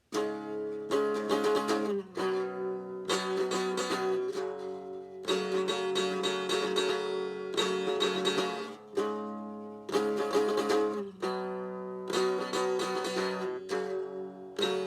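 Guitar played as a song's instrumental opening: chords struck in short repeated phrases, each left ringing.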